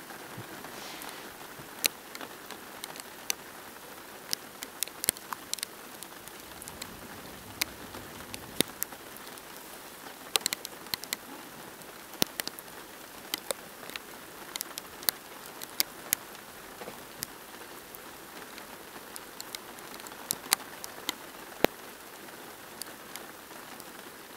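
Rain falling steadily as an even hiss, with many irregular sharp taps of raindrops striking a nearby hard surface.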